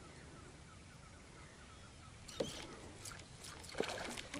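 A few faint, short splashes on calm water as a surface lure is worked, ending in a peacock bass (tucunaré) striking at the lure with a splash near the end.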